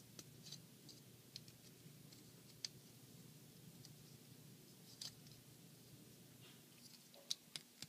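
Near silence with faint, scattered clicks of hard plastic toy-figure parts being handled and moved, a couple of them closer together near the end.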